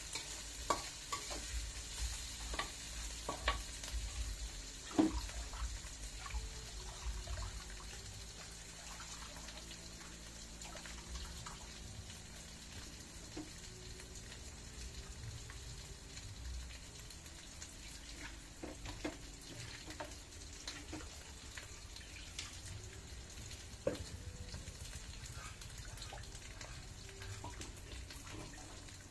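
Meat frying in a pan, with a utensil scraping and knocking against the pan during the first several seconds. After that comes a steady quieter sizzle with only an occasional clink.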